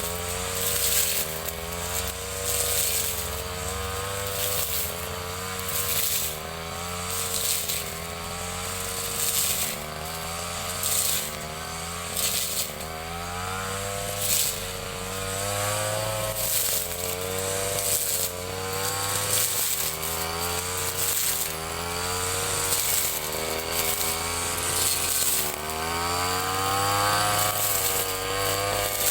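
Ryu 30.5 cc two-stroke brush cutter running at high speed while cutting grass. Its pitch dips and recovers every second or two.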